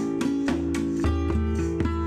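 Background music of a strummed guitar over a steady low bass line, plucked chords falling in an even rhythm.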